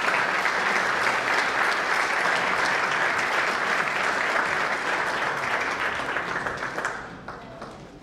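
Audience applauding, the clapping dying away about seven seconds in.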